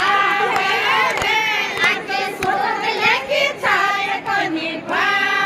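Women's voices singing a Rajasthani folk song in chorus, with a few short sharp knocks underneath.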